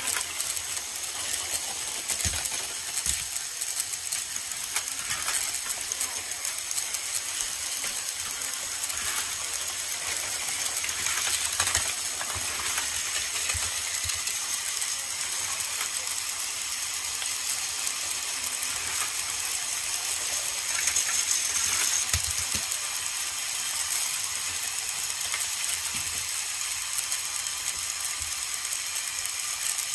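Several battery-powered Plarail toy trains running on blue plastic track: a steady whirring rattle of small gear motors and wheels clattering over the track joints, with a few sharper knocks.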